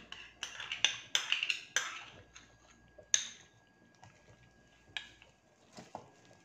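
Slotted silicone spoon stirring thick rice kheer in a pan, with quick scraping and knocking strokes against the pan for the first two seconds or so. A single sharp knock comes about three seconds in, then a few faint taps.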